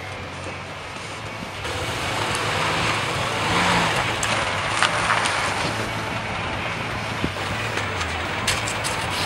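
Old truck engine running at a steady idle, a low rumble, with a rush of noise that swells about two seconds in and a few sharp clicks near the end.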